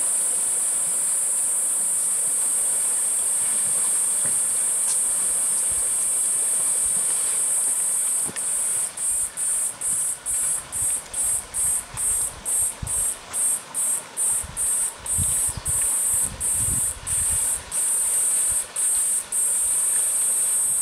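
Cicadas buzzing in a loud, high-pitched steady drone. About eight seconds in the drone breaks into a rapid pulsing of roughly two pulses a second, then settles back into a steady drone near the end.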